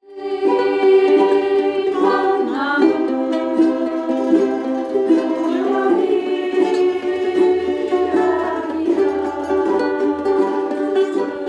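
Several ukuleles strummed together while women sing a song in unison, with held notes and occasional slides in pitch.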